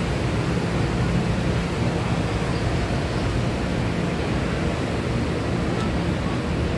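Steady low rumble of a train's diesel engine running at a standstill, without breaks or changes.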